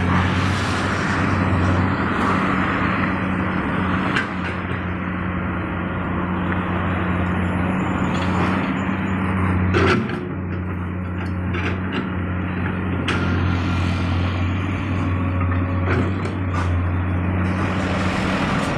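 Komatsu PC200 hydraulic excavator's diesel engine running with a steady drone while it digs, with a few knocks and scrapes from the bucket working the soil, the loudest about ten seconds in.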